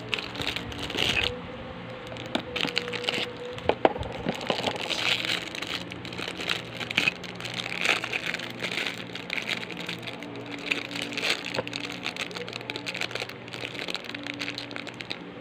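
Clear plastic bags crinkling and crackling in irregular bursts as bagged mini figures are handled, with a few sharp clicks about four seconds in. Soft background music plays underneath.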